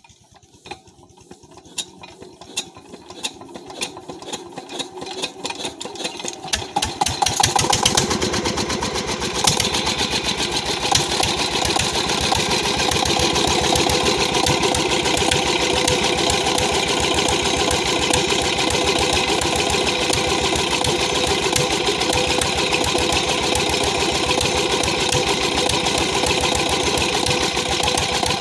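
Peter diesel engine starting after repair: hand-cranked, its beats quickening and growing louder until it catches about seven seconds in, then running steadily.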